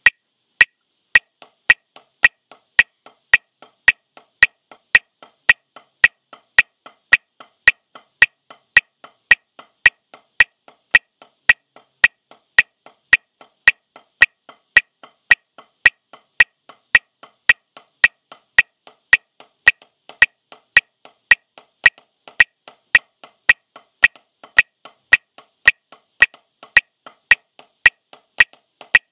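Wooden drumsticks striking a rubber practice pad in a steady, even rhythm of legato strokes, about two a second.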